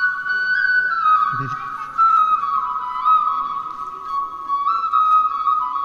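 Flute music: a slow melody of held, stepping notes.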